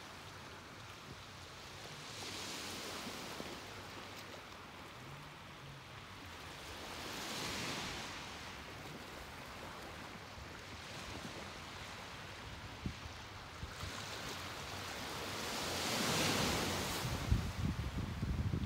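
Ocean waves washing onto the shore, swelling and fading in slow surges every few seconds, the loudest near the end. Wind rumbles on the microphone in the last couple of seconds.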